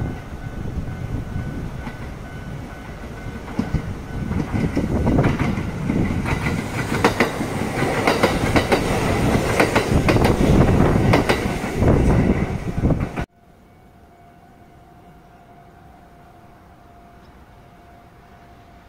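An electric passenger train passing close by, its wheels clattering over the rail joints, loudest from about 5 to 12 seconds in. About 13 seconds in the sound cuts off suddenly, leaving only a faint steady hum.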